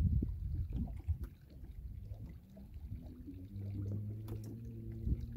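Water lapping and sloshing against a fishing boat's hull, with small knocks. A low steady hum comes in about halfway through and holds.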